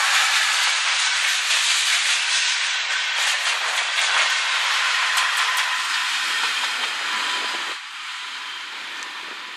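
Freight train passing close by, its wheels on the rails making a loud, steady rushing hiss. About eight seconds in it cuts to a quieter, more distant rush as another train approaches.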